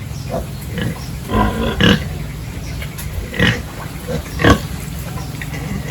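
Pigs grunting and squealing in short calls, about five of them, the loudest two in the second half, over a steady low hum.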